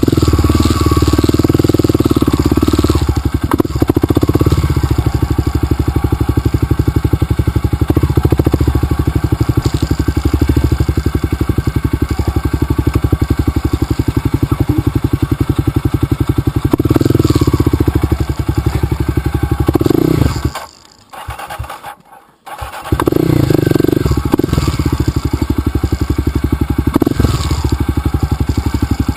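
Dirt bike engine running steadily on a trail, with its pulses closely and evenly spaced. About two-thirds of the way in, the sound drops out for about two seconds, then the engine picks up again.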